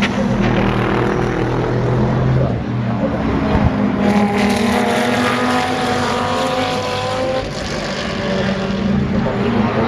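Racing car engines at speed on a circuit, loud and continuous, with engine notes climbing as cars accelerate about halfway through.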